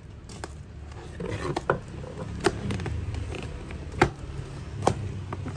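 Packing tape on a cardboard box being slit and pulled apart along the lid seam, with rustling cardboard and several sharp snaps and clicks as the tape and flaps give way.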